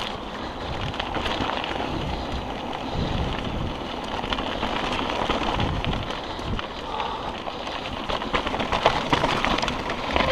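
Mountain bike riding down a rocky dirt singletrack: a steady rush of tyres over loose gravel and rock, with frequent clicks and rattles from the bike and a low rumble.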